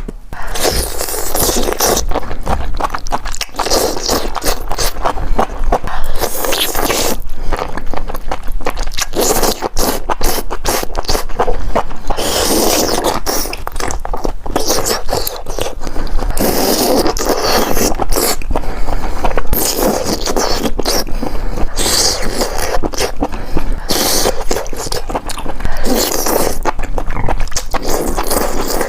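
Close-miked eating: a person chewing and biting into sauce-coated mushrooms, a continuous run of wet mouth noises with many small clicks.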